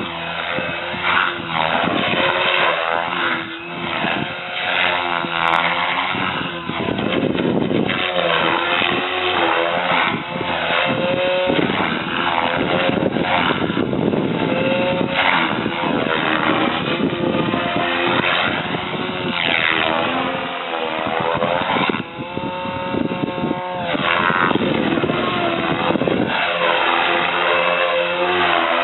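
GAUI Hurricane 425 electric RC helicopter in flight, its Scorpion brushless motor and rotor blades whining. The pitch swings up and down again and again as it manoeuvres.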